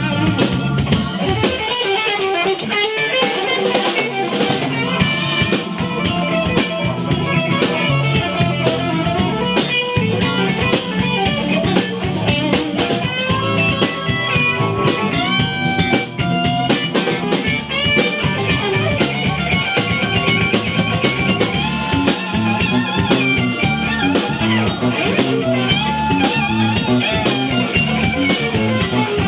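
Live blues band: a Telecaster-style electric guitar plays a lead solo over electric bass and a drum kit. The bass drops out for a couple of seconds near the start, then comes back in.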